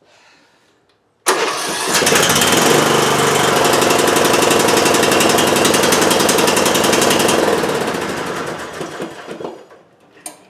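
Briggs & Stratton Intek 15.5 hp lawn-tractor engine cranking on the electric starter and catching about a second in, then running steadily for about six seconds before it is shut off and dies away. This is the first start after the no-start electrical fault was cured.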